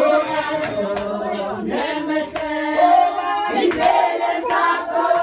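A group of people singing a traditional Xhosa ceremonial song together, many voices holding and sliding between notes, with sharp hand claps now and then.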